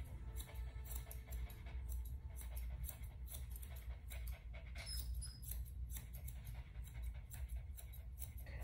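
Grooming scissors snipping through a dog's coat in quick, irregular cuts, over a low steady hum.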